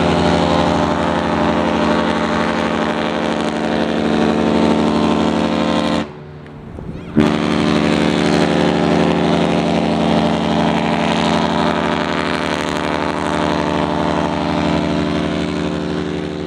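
Horn of the cruise ship Independence of the Seas sounding two long, steady blasts, the sail-away signal as she leaves port. The first blast cuts off about six seconds in, and the second starts after a pause of about a second.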